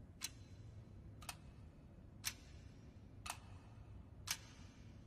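Clock ticking, one sharp tick a second, five ticks in all, counting down a two-minute time limit.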